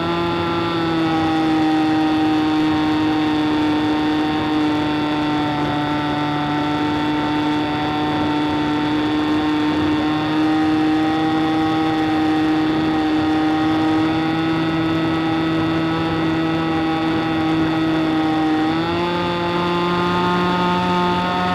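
Big Stick 60 RC model plane's engine running steadily in flight. Its pitch dips slightly about a second in and rises again near the end as the revs pick up.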